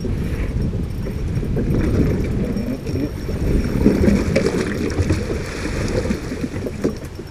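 Wind rumbling on the microphone over water lapping and slapping against a small boat's hull, with a few sharp knocks in the second half.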